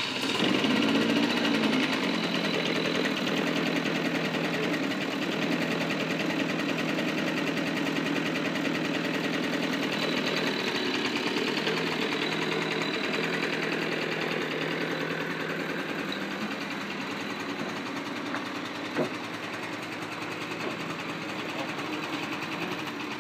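CPI GTR 49cc sport moped's engine running while the bike stands still. It runs a little higher and louder for the first two seconds, then settles to a steady idle. A single short click comes about 19 seconds in.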